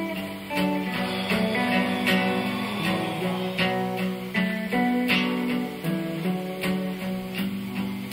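Instrumental passage of a band's song: strummed guitar with held melody notes changing pitch over a steady beat of about two hits a second.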